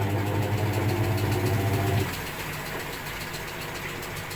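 Top-load washing machine's motor running at full spin speed, a steady hum around 1200–1300 rpm. About two seconds in the loud hum cuts off abruptly, leaving a quieter rumble as the spin winds down.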